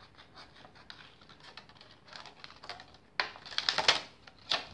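Scissors cutting thin, stiff PET bottle plastic along a traced leaf outline. Faint snips and crackles come first, then loud, noisy crackling of the plastic sheet from about three seconds in.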